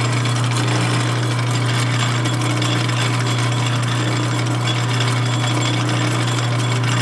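Small lathe's electric motor running at a steady speed, spinning a coil bobbin as fine copper magnet wire is wound onto a 1928 Briggs & Stratton Model FH ignition coil; a steady low hum with no change in speed.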